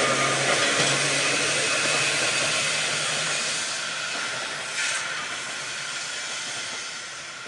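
Manx Electric Railway Car 1, a vintage electric tram, running along the track and moving away, with a steady low hum and rolling noise that fade gradually. There is a short louder noise about five seconds in.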